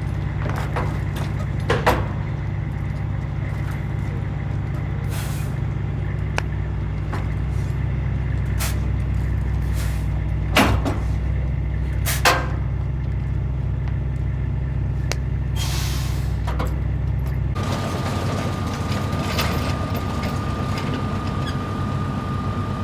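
A heavy diesel engine runs steadily, with a few sharp metallic knocks and short hisses of released air. The engine drone stops abruptly about 18 seconds in, leaving a steady high tone over background noise.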